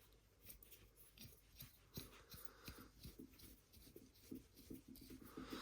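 Faint, irregular small clicks and scrapes of a metal eye bolt being screwed by hand into a magnet's threaded hole, the threads coated with thread lock.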